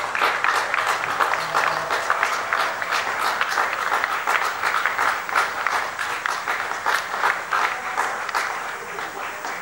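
Crowd applauding, many hands clapping at once, dying away near the end.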